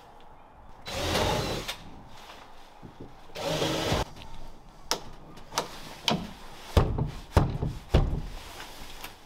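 Plywood panel being fitted into a wooden frame and held with bar clamps: two brief scraping sounds, then a string of sharp clicks and wooden knocks, some with a dull thud, in the second half.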